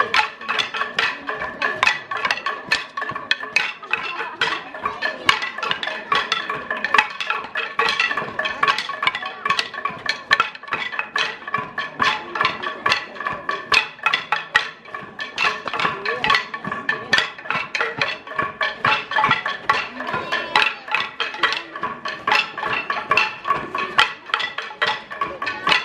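Bamboo sticks struck together and clacked by a group of dancers in a fast, continuous rhythm of sharp wooden knocks, over percussion music with steady ringing tones.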